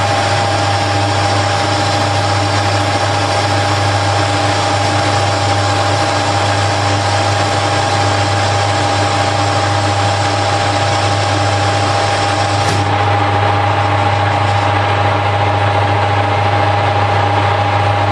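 Harrison L5 metal lathe running steadily with a low hum and a steady whine, turning a bar down in a cut. The higher hiss thins out about thirteen seconds in.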